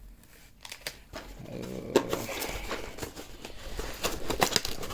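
Small packaging being handled and opened by hand: rustling with many light clicks and taps, busier toward the end. A brief low hum-like sound comes about a second and a half in.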